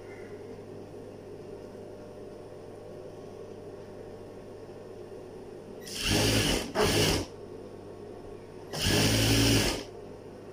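Electric sewing machine stitching fabric in three short runs, starting about six seconds in, the last one the longest, over a steady low hum.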